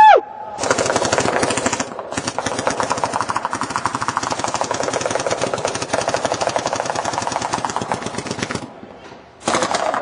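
Reball markers (paintball-style guns firing reusable rubber balls) firing in rapid, continuous streams of shots, with a short lull near the end before the firing picks up again. At the very start, a brief loud tone rises and falls in pitch.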